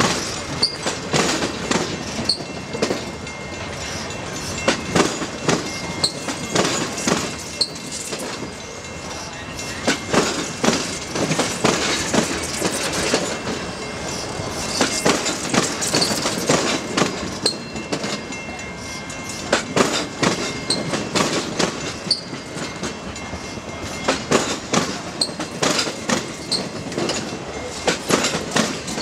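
Passenger railcars rolling past at low speed, their steel wheels clacking over rail joints in irregular clusters of sharp knocks, with a faint steady high wheel squeal underneath.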